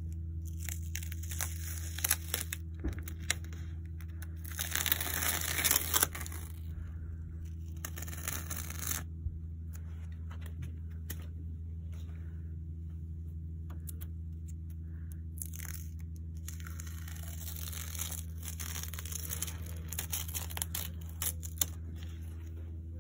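Protective tape being peeled off the edges of a new tractor's mesh grille, tearing away in several spells with pauses between, the loudest about five to six seconds in. A steady low hum runs underneath.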